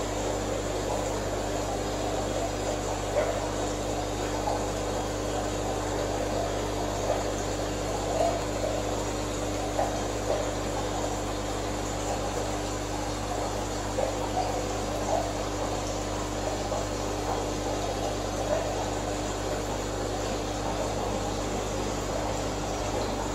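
Aquarium filter pump running with a steady hum, with small irregular gurgles every second or two.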